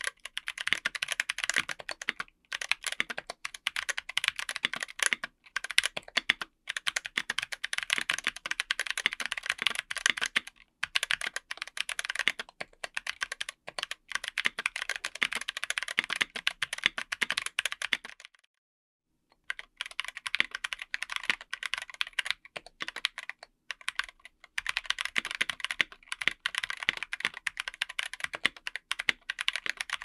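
Fast typing on a mechanical keyboard with Zeal Clickiez 40g switches in their tactile form, MT3 PBT keycaps on an FR4 plate in an aluminium case: a dense run of key clacks. About 18 seconds in the typing stops for about a second, then starts again on the linear form of the same switches.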